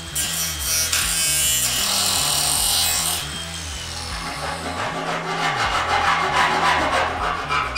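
A handheld power tool runs against the sheet-metal edge of a car's tail light panel for about three seconds, then a hand file rasps along the metal edge in quick, evenly repeated strokes. Background music with a bass line plays underneath.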